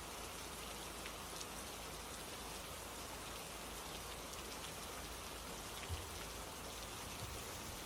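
Steady rain falling, with the patter of individual drops landing on a surface and a soft low thump about six seconds in.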